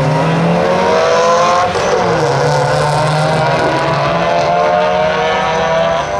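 Drag-racing cars accelerating at full throttle down the strip, their engine note climbing. The pitch drops once at a gear change about two seconds in, then climbs again.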